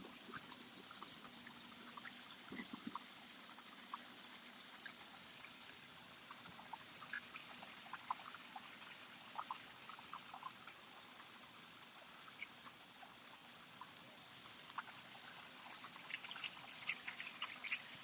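Faint trickling of a small shallow stream: scattered light ticks of running water over a steady hiss, getting busier near the end.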